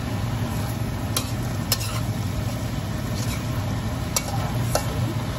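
A metal spatula scrapes and tosses stir-fried cabbage around a stainless steel wok as the vegetables sizzle. It strikes the wok with sharp clinks four times, over a steady low hum.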